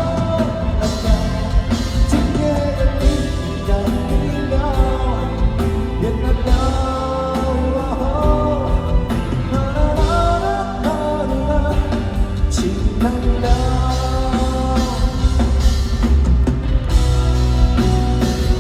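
Live pop-rock band music with drum kit, bass and a melodic lead line carrying the tune.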